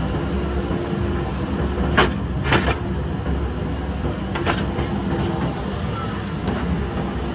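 JCB backhoe loader's diesel engine running steadily under work, with sharp clanks about two seconds in, a pair just after, and another past four seconds.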